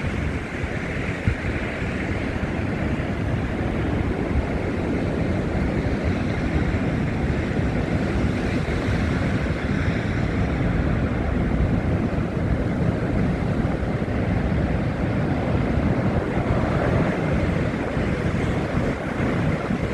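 Wind buffeting a handheld phone's microphone in a snowstorm: a loud, steady, low rushing rumble with no break.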